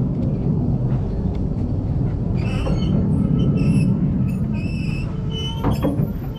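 Narrow-gauge railway carriage rolling slowly with a steady low rumble and a few knocks. From about two and a half seconds in, a high metallic squeal from the train's running gear comes and goes.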